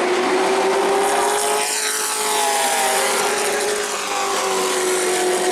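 Race truck's engine running as it drives past on the oval. Its note rises and then falls in pitch as it goes by.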